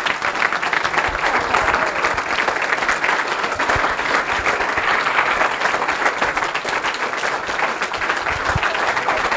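Audience applauding: the dense, steady clapping of many hands, kept up without a break.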